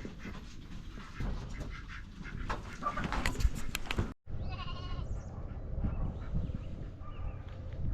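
Farm animals bleating, with one clear bleat just after a sudden break about four seconds in and fainter calls after it. Before the break there is rustling and clattering.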